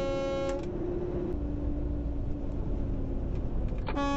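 A vehicle horn sounds and cuts off about half a second in, leaving the steady drone of the truck's engine and road noise. A second horn blast starts just under a second before the end.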